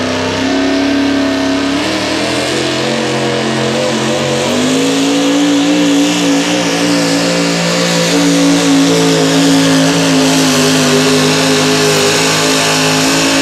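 Modified 4x4 pulling truck's engine running at full throttle as it drags the weight-transfer sled. The engine note is steady and high-revving, and it steps up in pitch and gets louder about four and a half seconds in.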